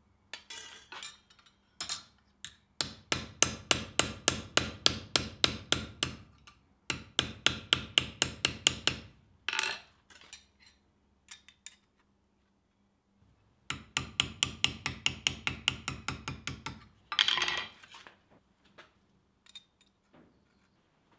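Rapid, light hammer blows on a steel anvil, about five a second, in three runs with short pauses between, as a forged scissor blade is hammered flat.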